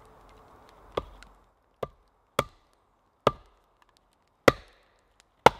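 Hultafors axe driven into a length of dense oak on a chopping log: six separate chopping blows, roughly a second apart, the last two the hardest, as the split is worked open.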